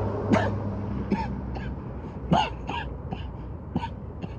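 A man coughing, about eight short coughs over four seconds, loudest about half a second in and again near the middle: a coughing fit after a deep hit off a vape pen held until it blinks.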